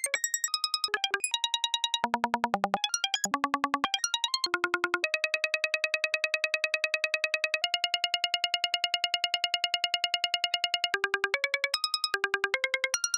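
Software modular synth patch playing a fast stream of short repeated blips, about ten a second, hopping at random between pitches. Around the middle the pitch holds on one note for several seconds and steps up once before the random hopping resumes near the end.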